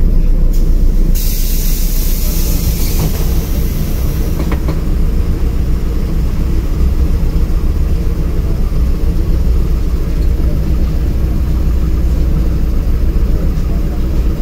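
Interior running noise of a LiAZ-5292.22 diesel city bus on the move: a steady deep engine and road rumble. About a second in, a hiss starts and lasts roughly three seconds, with a couple of light clicks.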